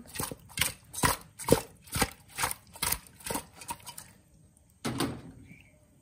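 A cooking utensil knocking and scraping against the side of an aluminium pot as pieces of fried fish are stirred and turned, about four quick knocks a second. The knocking stops about four seconds in, followed by one louder knock.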